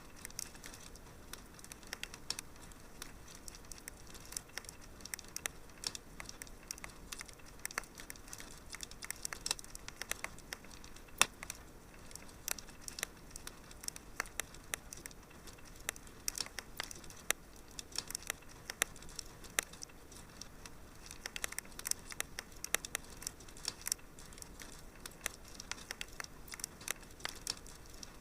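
Wood fire in a fireplace crackling, with dense irregular pops and snaps over a soft hiss. One pop about eleven seconds in is louder than the rest.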